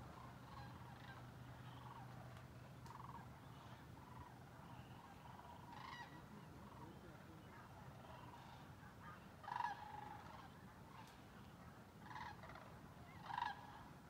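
Flock of sandhill cranes calling in the distance, a scattered chorus of rolling calls, with three louder calls, two of them close together near the end.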